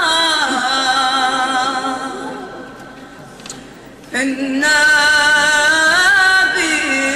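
Women's hadra chorus singing a Sufi devotional chant in unison, with long held, ornamented notes. The voices fade away about two seconds in and come back strongly about four seconds in.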